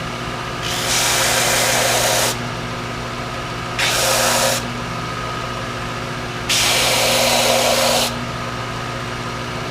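Belt sander running with a steady motor hum. Three times the stacked fins are pressed against the belt, giving a loud gritty hiss: about a second and a half, then half a second, then a second and a half. This is a straight sanding pass that cleans up the fin edges.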